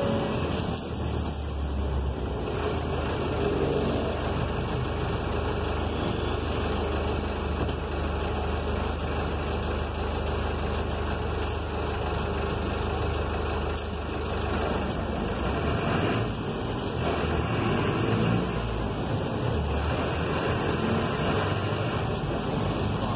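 City bus engine running steadily under cabin and road noise, heard from the driver's position on a wet street.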